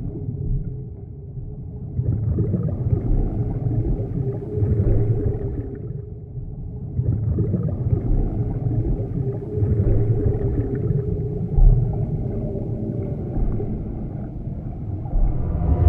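Designed underwater sound effects for a sea-monster animation: a deep rumble with a low held tone, rising and falling in slow swells, loudest near the end.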